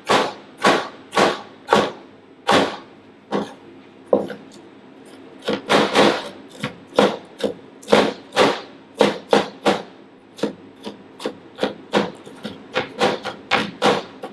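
Chef's knife chopping tomatoes on a plastic cutting board: a steady run of sharp knife strikes about two a second, a short lull around four seconds in, then quicker chopping.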